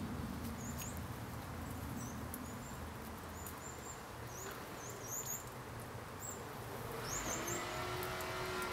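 Small birds chirping faintly in the background, a scatter of short, high-pitched notes with quick little glides, over a low steady outdoor rumble. Near the end a steady, evenly pitched hum comes in.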